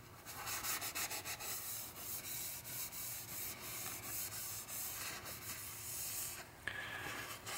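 Cloth rag rubbing boiled linseed oil into a charred hickory hammer handle: soft, repeated strokes of the rag along the wood.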